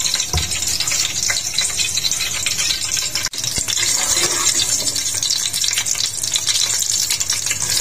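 Whole spices (cumin seeds, cinnamon, cardamom, peppercorns, cloves) sizzling in hot oil in a steel pot, stirred with a wooden spatula, with small ticks over a steady hiss. The sizzle is the sign that the oil has come up to frying heat. It breaks off for a moment a little past three seconds in.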